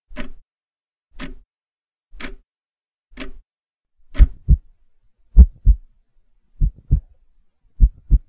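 A soft tick about once a second, giving way about four seconds in to a heartbeat sound effect: low double thumps, lub-dub, roughly every 1.2 seconds, louder than the ticks.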